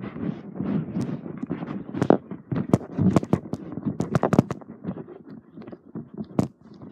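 Irregular knocks and thumps with scraping and rustling, from a cardboard box being jostled as it is moved, with the loudest knocks about two seconds in and near the end.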